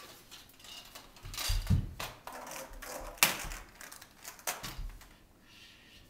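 Handling noise as a child rummages with a plastic Easter basket: rustling, a few sharp clicks and knocks, and dull thumps, the loudest about a second and a half in.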